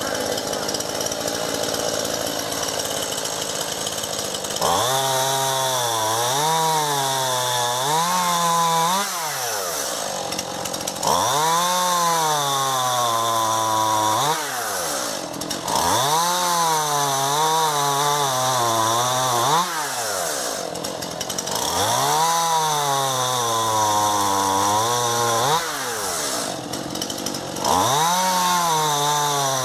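Two-stroke chainsaw idling at first, then revved hard about five times, each burst held four to five seconds with the pitch sagging and wavering as the chain bites into an ash branch, dropping back between cuts.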